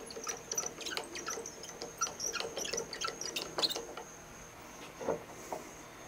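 Light, irregular metal clicks and ticks as a South Bend lathe's crossfeed handle is cranked and the cross-slide is worked loose from the saddle. They die away about four seconds in, followed by two soft knocks as the cross-slide is slid along the dovetail.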